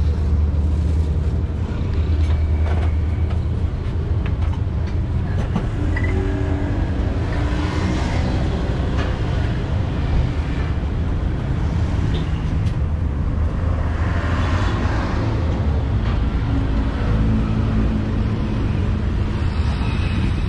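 Steady low rumble of street traffic, with the engines of passing vehicles.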